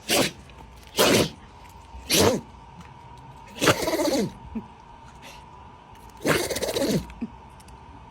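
An animal calling five times, loud short cries spaced a second or so apart. The last two are longer, with the pitch falling through each.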